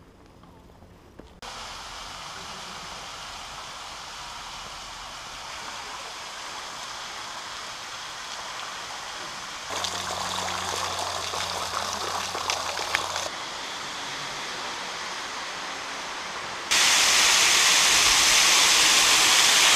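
Meltwater waterfall spilling from a sandstone canyon rim: a steady rush of falling water. It starts after a quiet second or so, jumps in level several times, and is loudest near the end.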